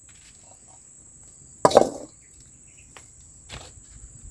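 Steady high-pitched chirring of crickets, with one loud knock about two seconds in and a couple of faint clicks later on.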